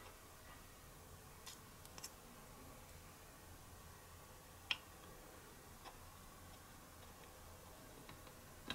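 Faint, scattered clicks of tiny wooden chopsticks tapping a miniature pot and rice bowl as food is moved between them: about six light ticks, the sharpest about halfway through, over near silence.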